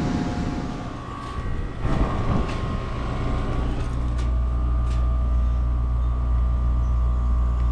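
Heat pump outdoor unit running in cooling mode: the compressor and condenser fan hum steadily and loudly from about four seconds in, with a couple of clicks just after. Before that, the indoor air handler hums faintly.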